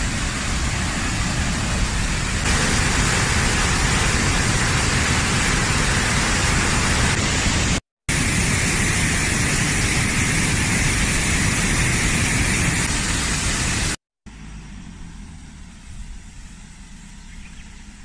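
Waterfall water rushing and splashing as a steady, loud noise, in two stretches that cut off abruptly about eight and fourteen seconds in. After the second cut the water noise gives way to a much quieter outdoor background.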